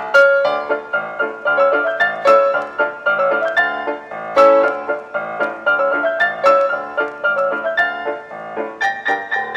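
Background piano music, a steady run of struck notes.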